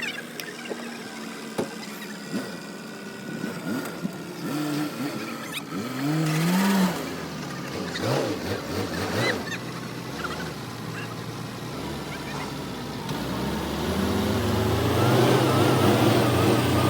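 Off-road vehicle engine running and revving, growing louder over the last few seconds, with scattered short rising and falling tones in the first half.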